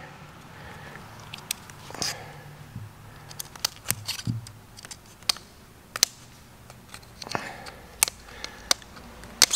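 Steel pick clicking and scraping at the oil ring in its groove on a slant-six piston, in irregular small sharp ticks. The oil ring is rust-stuck and is not freeing.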